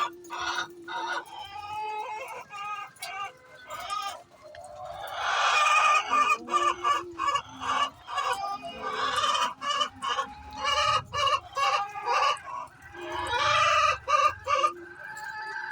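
Hen clucking in a rapid run of short calls, with longer, louder drawn-out cackles about five seconds in and again near the end: the noise a hen makes before laying an egg.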